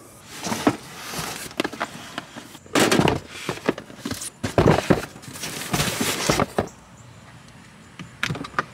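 Cardboard boxes being shifted and set down in a car's cargo area: a run of irregular knocks, thumps and scrapes that dies down about six and a half seconds in, with a few small clicks near the end.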